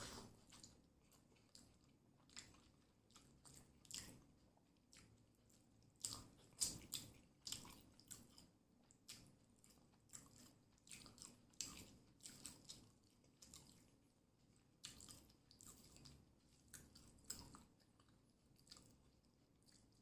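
A person chewing and biting food close to the microphone, a run of short, crisp, wet mouth clicks and crunches. They come thickest about a third of the way in.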